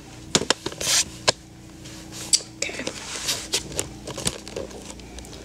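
Handling noise of a camera being picked up and carried: scattered sharp clicks and taps with short rustles of clothing, over a faint steady hum.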